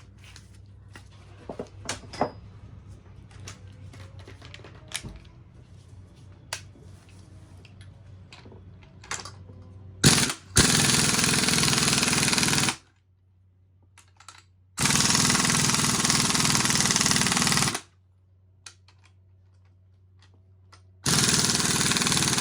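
Impact wrench driving the screws of a coil-spring compressor on a strut in three loud bursts, about ten, fifteen and twenty-one seconds in, compressing the spring further, after some light clicks of tool handling.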